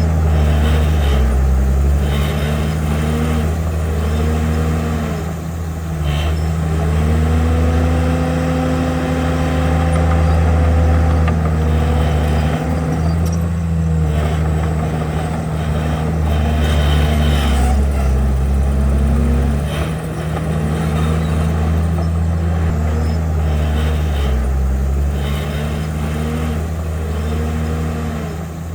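Komatsu bulldozer's diesel engine working under load, its note rising and falling again and again as the throttle and load change, with one longer steady stretch in the middle.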